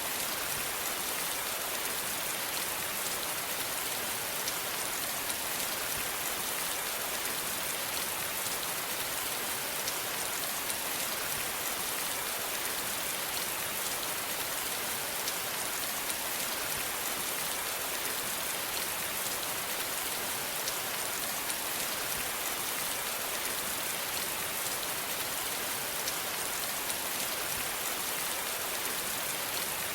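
Steady rain falling, an even hiss of countless drops pattering on a surface, with no change in strength.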